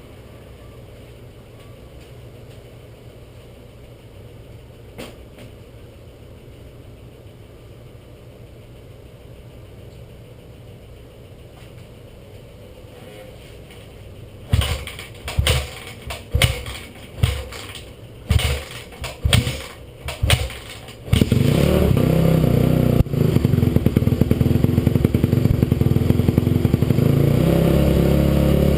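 2007 Honda CRF250R's four-stroke single-cylinder engine being kick-started: after a long quiet stretch, several short bursts as the kickstarter spins the engine over. It catches about two-thirds of the way in and runs steadily and loudly from there.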